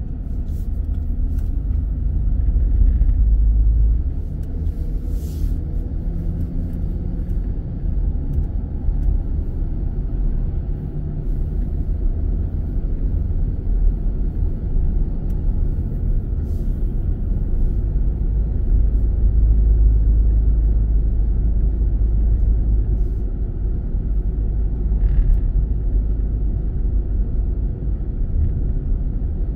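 Steady low rumble of a car driving, heard from inside the cabin: road and engine noise, swelling a little twice.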